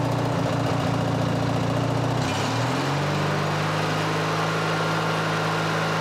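Craftsman 19.5 hp riding mower's Briggs & Stratton engine running steadily, then revving up about two seconds in and holding at a higher speed. It picks up with no hesitation, its carburettor mixture screw freshly adjusted after running too lean.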